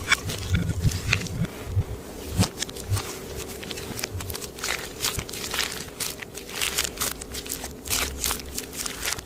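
Clear slime being mixed and pressed, giving irregular sticky clicks and small pops.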